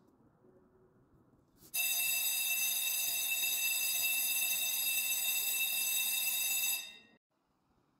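A loud, steady, high-pitched alarm-like electronic tone. It starts abruptly about two seconds in, holds evenly for about five seconds, then dies away.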